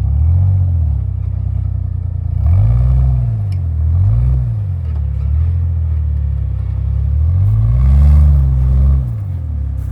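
Jeep engine on an off-road trail, running steadily and revving up and back down about four times, the longest rev near the end.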